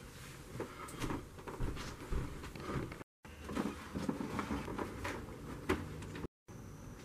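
Scattered soft knocks, footsteps and rustles of a person moving about a room. The sound cuts out completely twice, briefly, at edits.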